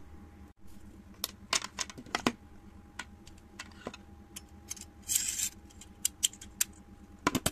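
Metal clicks and rattles from handling an INGCO 3-in-1 manual staple gun: a run of sharp clicks, a short rasp a little past the middle, and two quick clicks near the end.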